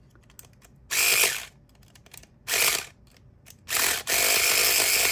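Electric pumpkin-carving saw buzzing against a Master padlock, used as a power lockpick. Its oscillating blade runs in three short bursts, then keeps running steadily from about four seconds in.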